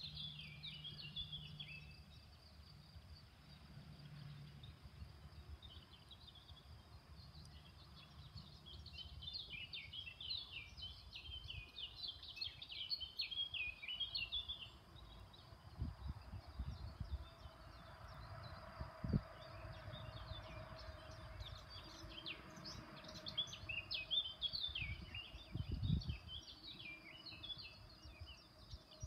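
Songbirds singing in a garden: many quick, varied chirping phrases, busiest in the middle and towards the end, over faint outdoor background. A few low bumps or rumbles come in the second half.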